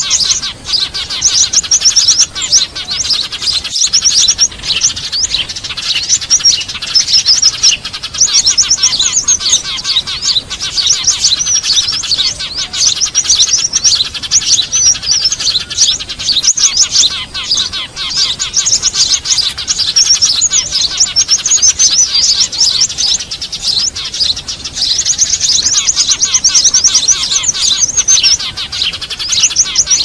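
Dense, high-pitched chirping and rapid trills of small songbirds, almost without pause: a recorded bird-lure (pikat) call meant to draw small birds in.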